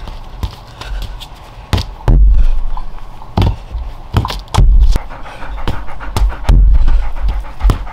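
A yellow Labrador panting, with sharp thuds of a rubber ball being kicked and bouncing on grass. Several loud low rumbles come and go, about a second and a half to two seconds apart.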